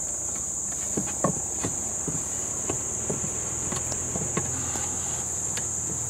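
Steady high-pitched cricket chorus, with the low hum of honeybees from the open top-bar hive beneath it. A few light wooden knocks and scrapes in the first half as the hive's top boards are handled and slid aside.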